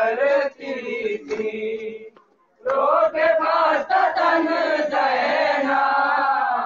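Male voices chanting a noha, the Shia lament of mourning, in two long sung phrases with a short break about two seconds in. A few sharp slaps are heard among the voices.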